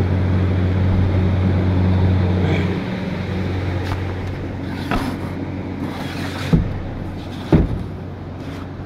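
A steady low electric hum that stops about three seconds in, then an even open-air hiss with a few light knocks and two dull thumps near the end.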